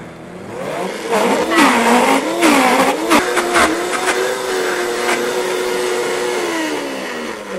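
Vitamix high-speed blender running at high speed while frozen banana and mango are forced into its blades with the tamper. The motor's pitch wavers under the load, with loud rattling knocks from the frozen fruit in the first few seconds. It then settles to a steady whine and winds down near the end.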